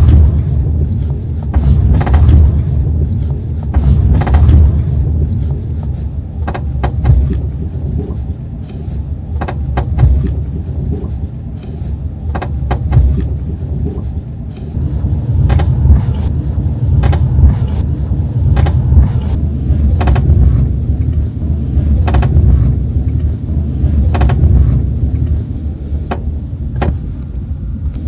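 Subaru Forester driving, with steady road rumble and irregular short creaks and clicks from the passenger-side B-pillar trim: a body creak that has come back after a repair.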